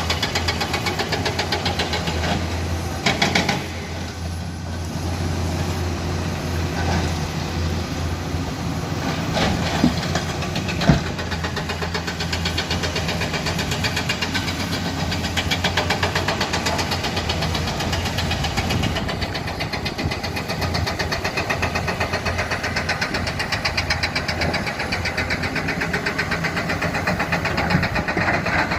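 Heavy diesel engine of earthmoving machinery running steadily with a fast, even pulse, and a few short knocks of rock and steel, the sharpest about eleven seconds in.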